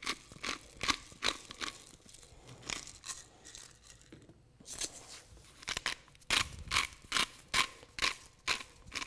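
Hand-twisted spice grinder grinding salt and pepper, a gritty crunch with each twist at about two to three a second. It stops for about two seconds near the middle, then starts again.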